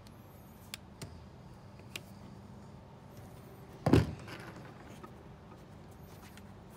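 A few light clicks, then one loud thump about four seconds in, from parts of an animatronic's doghouse being handled and knocked together during assembly, over a low steady hum.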